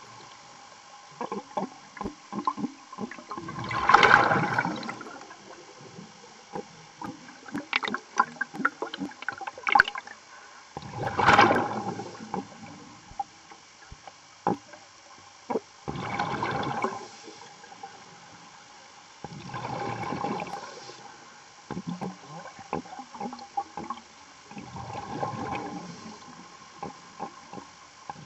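A working diver breathing through the regulator underwater: a gurgling rush of exhaled bubbles every four to five seconds, with scattered clicks and knocks between breaths.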